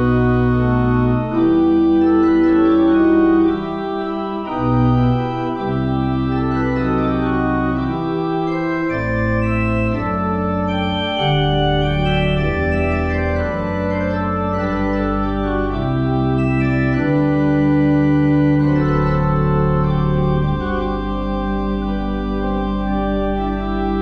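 Two-manual church organ playing a slow piece in sustained chords over deep bass notes, the chords changing every second or two.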